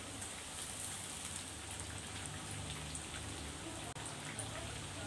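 Slices of tempeh deep-frying in a wok of hot oil: a steady sizzle with scattered crackles. The tempeh has turned golden and is almost ready to lift out.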